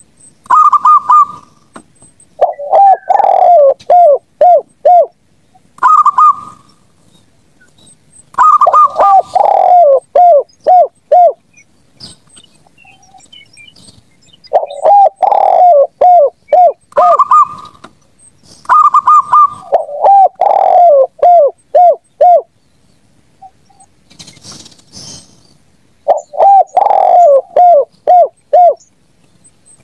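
Zebra dove and spotted dove cooing in turn. Short, fast, higher trilled phrases alternate with runs of five or six lower, rounded coo notes, each phrase repeating every few seconds.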